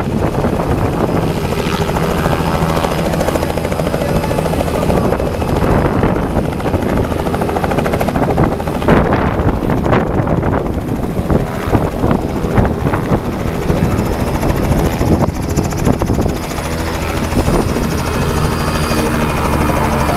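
Robinson R66 turbine helicopter close by, hovering just above the ground and setting down on a grass field, its rotor and turbine engine running at a steady, loud level throughout.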